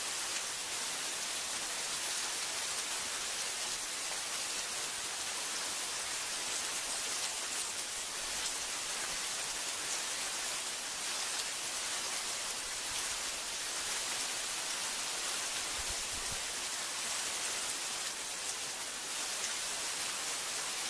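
Heavy rain falling steadily on trees and foliage, an even, unbroken hiss.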